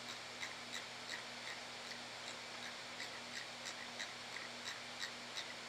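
Light clicks of a computer mouse scroll wheel, fairly evenly spaced at about three a second, over a faint steady electrical hum.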